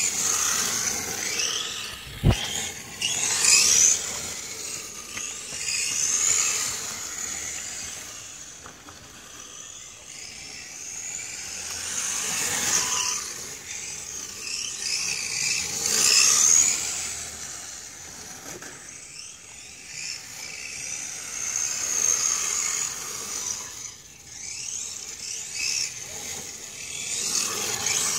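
A 1:10 radio-controlled car's brushless electric motor and shaft-driven four-wheel-drive gearing whine high. The pitch rises and falls with the throttle, and the sound swells and fades as the car drives toward and away. There is a sharp knock about two seconds in.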